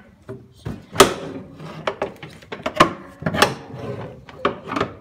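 A series of sharp clunks and rattles from the riding mower's levers and body parts being handled and knocked, with the engine off.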